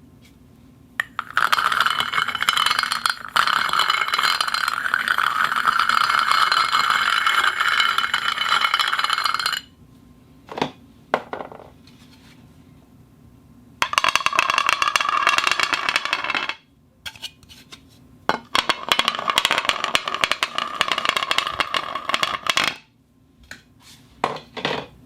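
A cup rubbing against a plate on a turning table, the friction making a sustained ringing squeal with several steady tones at once. It comes in three long stretches, the first about eight seconds long, with short knocks and clinks between them.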